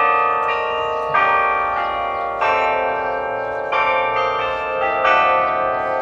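Bells of the Delacorte Musical Clock playing a slow tune: single struck notes about every second and a quarter, five in all, each ringing on into the next.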